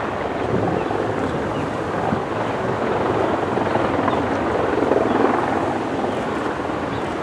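Helicopter flying, its rotor beating steadily over a broad rushing noise.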